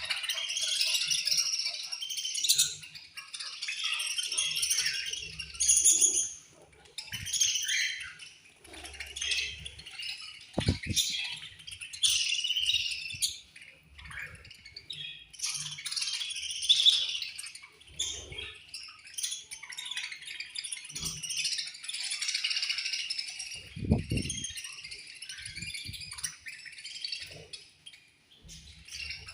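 Many budgerigars in a colony chirping and chattering at once, a busy high-pitched warble that never stops. Two short low thumps sound under it, about a third of the way in and again past two thirds.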